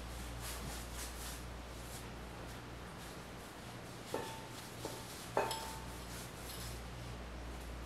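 Soft rubbing of hands rolling and shaping bread dough on a floured counter, over a low steady hum. About four to five and a half seconds in come three light clinks, each with a short ring; the last is the loudest.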